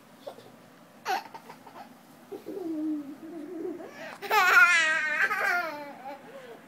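A small child laughing in a long, wavering, high-pitched run about four seconds in, after a short squeal about a second in and some lower babbling.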